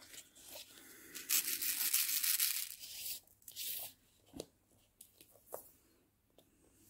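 A stiff diamond-painting card sliding and rustling across a tablecloth as it is turned round, a loud scraping hiss lasting about two seconds. A shorter rustle and a few light clicks follow.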